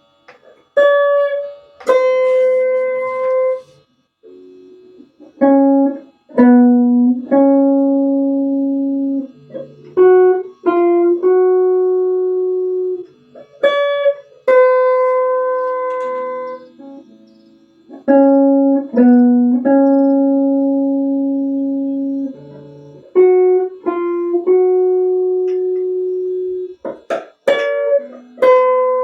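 Slow instrumental melody of single plucked notes on a string instrument, each note struck and left to ring and fade before the next, with short pauses between phrases.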